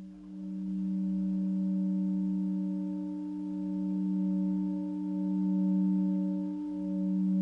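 A sustained soundtrack drone of several steady, pure tones held together, the lowest one strongest, swelling and easing slowly in loudness. One of the middle tones pulses gently.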